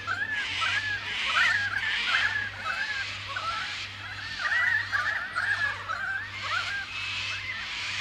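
A flock of birds calling together: a dense chorus of many overlapping short chirps and whistles that rise and fall, with harsher noisy bursts coming and going among them.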